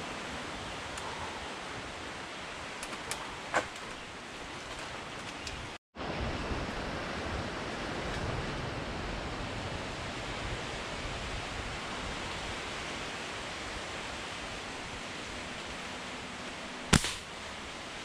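Steady windy hiss and rustle of palm fronds in a thicket, cut off briefly about six seconds in. Near the end comes a single sharp snap, the loudest sound here.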